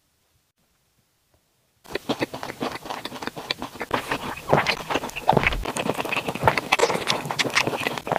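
Close-miked eating and food-handling sounds: a rapid, uneven run of wet clicks and crackles that starts about two seconds in.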